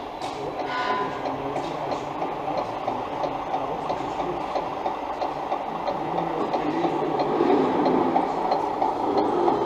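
Steady mechanical running and rolling noise of a radio-controlled scale model truck driving across the floor, getting somewhat louder near the end.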